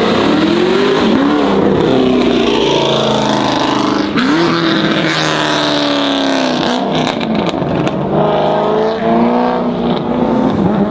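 A loud car engine revving hard, its pitch climbing and dropping again several times in quick succession.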